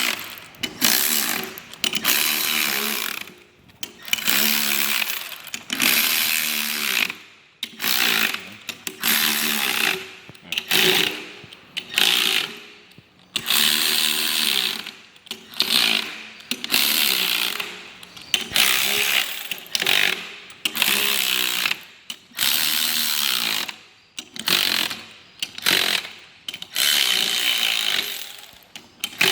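Power wrench running in the ring-gear bolts on a differential carrier in short bursts, one bolt after another, about one burst every two seconds, each a whining buzz lasting a second or so. The bolts are being drawn up evenly around the circle before final torquing.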